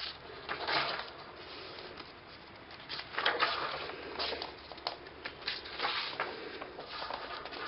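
Album photo-book pages being turned and handled: a run of short, irregular paper rustles and rubs.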